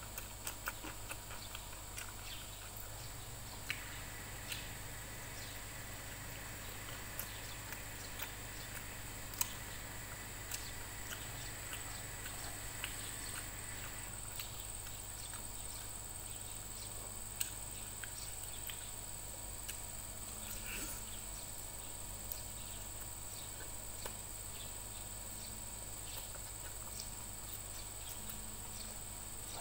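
Eating with the hands: small scattered clicks and smacks of chewing and of fingers working rice and tearing fried chicken, over a steady low hum and a thin, steady high whine.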